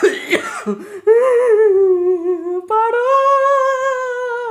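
A person's voice humming two long, slightly wavering notes without words, the second starting a little past halfway.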